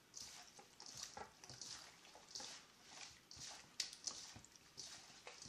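Faint wet squelching of raw chicken wings being squeezed and turned by hand in their marinade in a stainless steel bowl, about two squishes a second. One sharp click about two-thirds of the way through.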